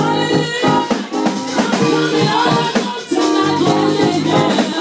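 Church praise music: voices singing over a band with steady, regular percussion.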